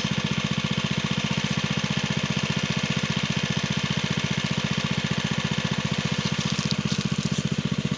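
A small engine idling steadily, with an even, rapid beat of about ten pulses a second.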